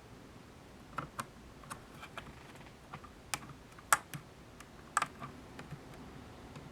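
Irregular small hard clicks and taps of acrylic case parts being handled and fitted together around the oscilloscope board. There are about a dozen, and the sharpest come near the middle.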